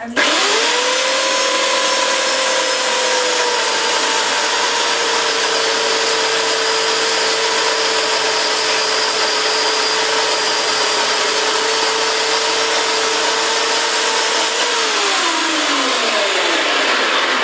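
Chainsaw cutting down into the end of an upright log. The saw speeds up at once, runs at a steady high pitch that sags slightly as it bites into the wood, then winds down near the end.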